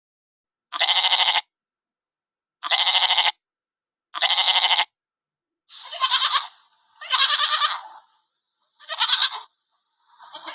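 A bleating farm animal gives six wavering bleats, each under a second long, about one every one and a half seconds, with a short faint call near the end.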